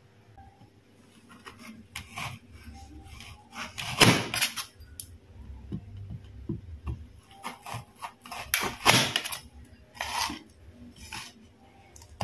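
A knife cutting through a firm, chilled biscuit cake of layered Marie biscuits and nuts, giving irregular crisp crunches and clicks as it goes through the biscuit layers and meets the plate; the loudest crunches come about 4 and 9 seconds in.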